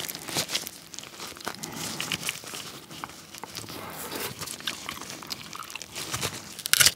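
Cooked king crab shell crackling and crunching as gloved hands break a leg apart and pull out the meat, with many small cracks and one loud sharp crackle just before the end.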